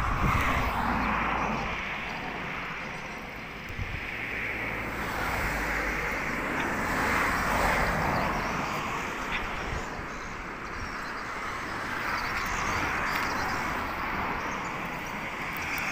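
Road traffic passing: a noisy rush of vehicles that swells and fades every few seconds, with a low rumble of wind on the microphone at times.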